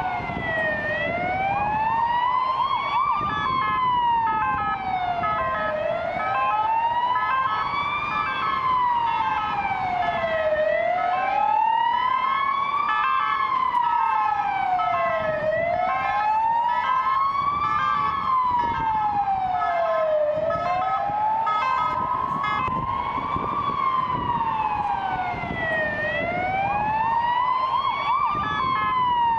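Emergency vehicle siren in a slow wail, rising and falling about every five seconds. Shorter steady broken tones sound above it from about two seconds in until about twenty-two seconds in, over road and engine noise.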